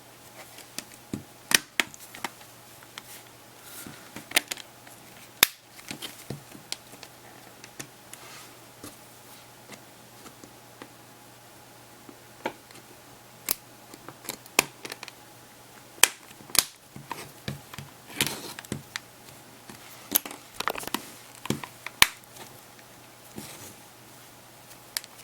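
Irregular sharp plastic clicks and snaps as the rear housing of a Samsung Galaxy Player 5.0 is pressed onto the device and its clips catch, with quieter handling noise between.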